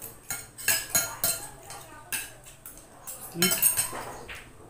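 Spoons and forks clinking and scraping against plates while people eat, a run of short sharp clinks at an irregular pace.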